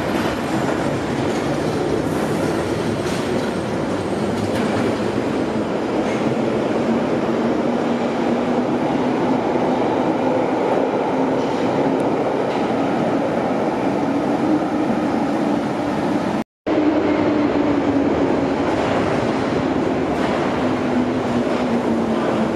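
London Underground 1972 Stock tube trains running through a deep-level station: a steady rumble with a motor whine slowly rising as a train pulls out into the tunnel. After a brief dropout about three-quarters through, a whine falls in pitch as the next train runs in and brakes.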